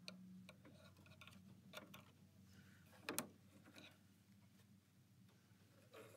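Near silence: faint scattered clicks and light taps, the loudest about three seconds in, over a faint low hum. The clicks come from a stiletto and fingers working loose thread around a sewing machine's metal needle plate and clear plastic bobbin cover.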